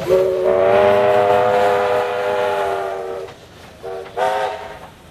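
Steam whistle of a 2-8-0 Consolidation steam locomotive: one long blast of about three seconds, followed by two short toots.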